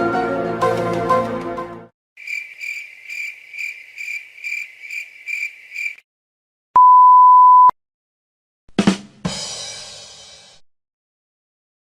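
A string of stock sound effects: a short music tail fading out, then a cricket chirping about two to three times a second, the classic awkward-silence effect. Then a pure one-second 1 kHz censor bleep, followed by a sudden hit with a hissing tail that dies away over about two seconds.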